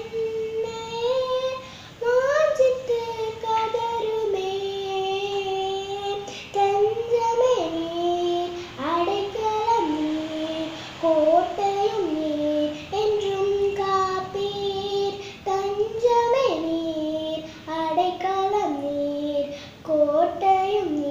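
A young girl singing a Tamil Christian song solo and unaccompanied, in long held notes that step up and down in pitch, with short pauses for breath.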